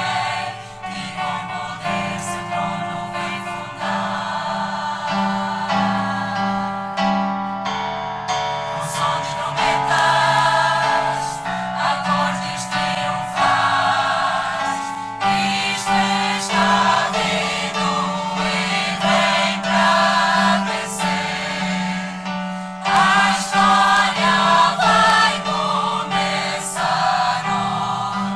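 Mixed choir singing a hymn in harmony, in held chords that change every second or two.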